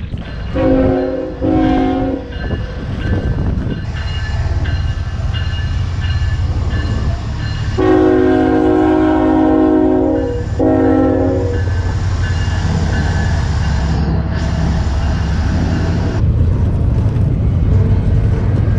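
Diesel locomotive horn sounding two short blasts, then a long blast and a final short one, over the steady low rumble of the locomotive and train passing.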